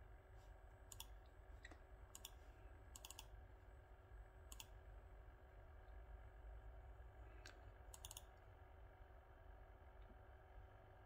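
Faint clicks of a computer pointer button, a handful of single clicks and two quick double-clicks about three and eight seconds in, over a low steady hum.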